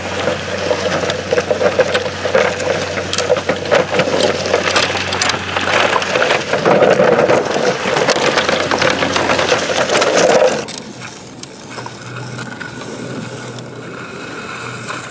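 Digging in dirt and sand: dense gritty crunching and scraping with many small clicks, which stops about ten and a half seconds in.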